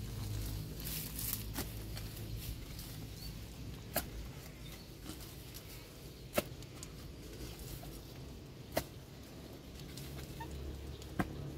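Hoe blade chopping into earth: five sharp knocks, one every two and a half seconds or so, over a low background rumble.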